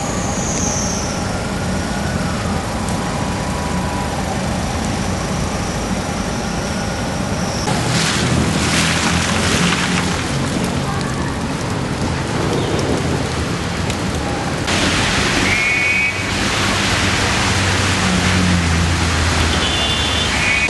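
Steady hiss of rain and water on a hail-covered street, with car engines running underneath. The background changes abruptly twice, about eight and fifteen seconds in.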